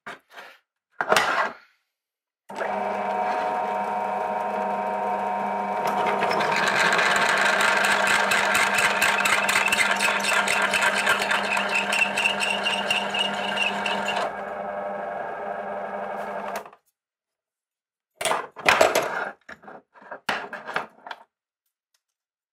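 Bench drill press motor starts a couple of seconds in and runs at a steady pitch. For about eight seconds the bit cuts through a metal pipe end piece, opening a 1/4-inch hole out to 8 mm, with a rough rhythmic grinding over the motor. The cutting stops, the motor runs on briefly and cuts out, and then come a few clanks of the vise and the metal part being handled.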